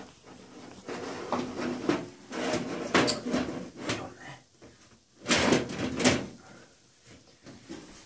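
A PC case's side panel being handled and fitted back on: irregular scraping and clunking as it is slid and pushed into place, with the loudest knocks about five and six seconds in.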